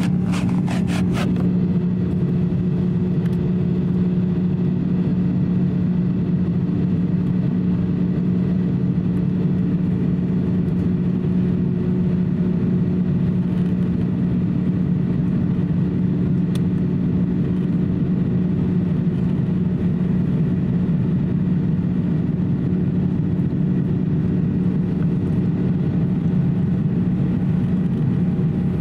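Airbus A350-900 cabin noise heard from a window seat over the wing: the Rolls-Royce Trent XWB engines and the airflow make a steady, even drone with a low hum running through it as the jet climbs above the clouds. A short run of light clicks sounds within the first second or so.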